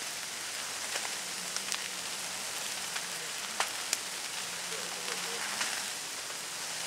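Wildfire burning through dry brush and trees: a steady hissing roar of flame with scattered sharp crackles and pops, the loudest two about three and a half and four seconds in.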